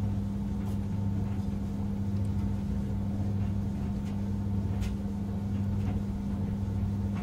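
A steady low electrical hum, with a few faint clicks as the opened plastic card-reader casing and circuit board are handled.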